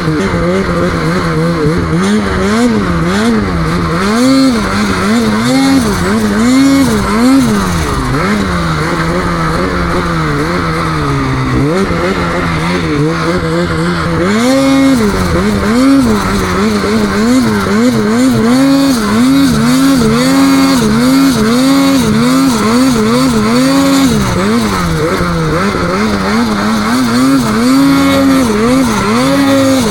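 Snowmobile engine revved hard in quick, repeated throttle blips, its pitch rising and falling about once a second, as the sled is worked through deep snow.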